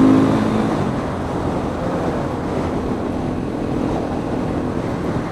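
Supermoto motorcycle riding along at road speed: engine running under a steady rush of wind over the helmet microphone. An engine note is plain at the start and fades about half a second in, leaving mostly the steady rush.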